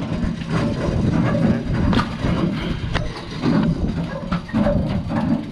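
Steady low rumble of a boat's machinery, with a few sharp knocks on deck, the clearest about two seconds in and another a second later.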